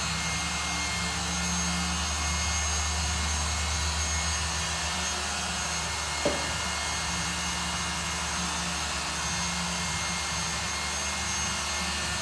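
A steady whirring machine noise with a low hum beneath it, and a single sharp click about six seconds in.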